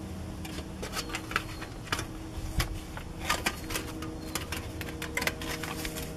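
Aluminium foil crinkling and rustling in the hands as ceramic-fibre fabric is wrapped around a metal vent pipe: a run of irregular sharp crackles. A faint steady low hum sits underneath.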